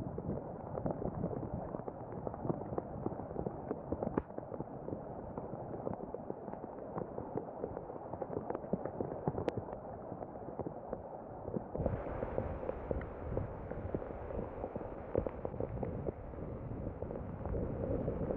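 Steady rain falling in a night storm, a dense patter of many drops. About twelve seconds in the sound turns brighter.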